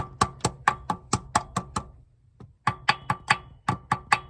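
Hammer tapping quickly on gasket material laid over the supercharger's carburetor opening, about four light taps a second with a short pause near the middle. The taps press the gasket against the blower's edge to mark the outline of the centre hole for cutting.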